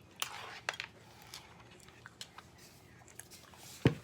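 Eating with a spoon from a bowl of fruit in coconut water: scattered small clicks and chewing, with one sharper knock near the end.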